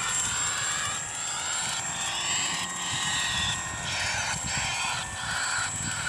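Electric RC flying-wing plane flying overhead, its motor and propeller droning and shifting as it turns, while its onboard speaker plays recorded starling sounds in repeated phrases as a bird deterrent.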